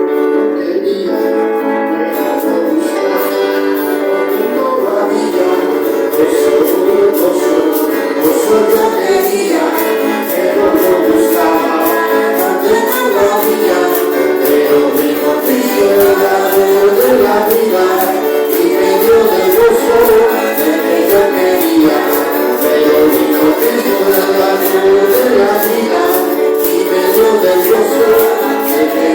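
Church worship music: keyboard chords with singing, and a steady shaken-percussion beat coming in about two seconds in.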